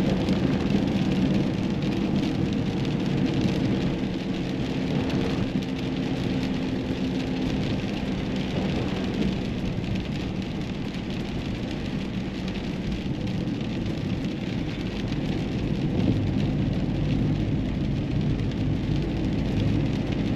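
Steady noise of a car driving: tyre noise on the road surface with a low engine hum.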